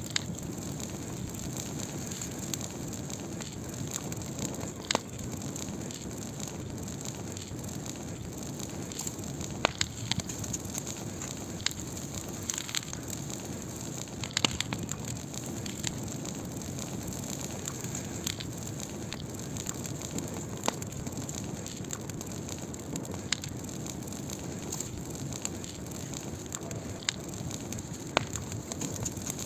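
Wood fire burning with a steady low hiss, broken by scattered sharp pops and crackles every second or two.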